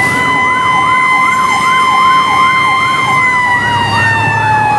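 Fire engine sirens heard from inside the cab: an electronic siren yelping up and down about two and a half times a second over a steady high siren tone that begins to slide down in pitch about three seconds in, with the truck's engine rumbling underneath.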